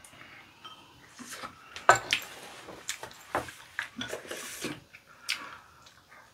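Ladle clinking and scraping against a large pot and a ceramic bowl as tteokbokki is scooped out and served, heard as a series of short clinks and scrapes.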